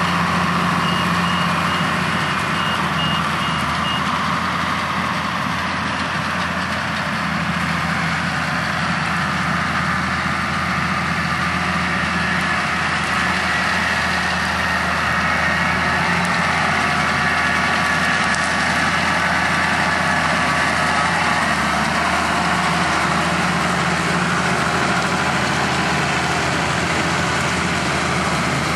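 Diesel engine of a large harvest machine running steadily, a continuous heavy drone with mechanical rush.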